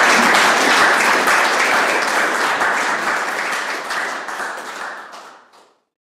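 Audience applauding, the clapping slowly thinning and fading, then stopping dead a little over five seconds in.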